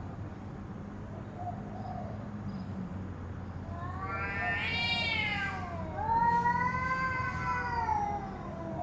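Cat yowling: two long, drawn-out calls that rise and fall in pitch, starting about four seconds in, the threatening caterwaul of a cat fight.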